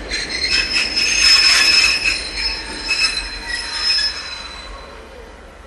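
Ichibata Electric Railway 3000-series two-car electric train squealing as it rolls slowly alongside the platform: a shrill metal-on-metal squeal of several steady high tones from its running gear, fading out about four and a half seconds in.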